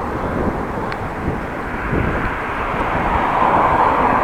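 Steady rushing noise of riding a bicycle in town traffic: wind on the microphone and road noise, growing a little louder toward the end.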